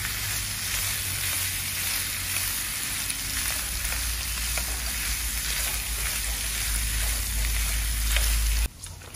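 Diced pork fat sizzling in a hot pan as it starts to render, stirred with chopsticks that tick lightly against the pan, over a low steady hum. The sizzle cuts off suddenly near the end.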